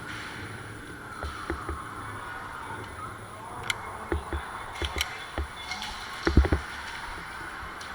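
Irregular short knocks and sharp clicks over a steady hiss, with a quick cluster of louder knocks about six and a half seconds in.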